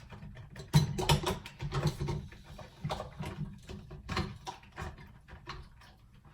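Irregular clicks and knocks of a coffee maker's lid being pushed and fiddled shut, the loudest knock about a second in.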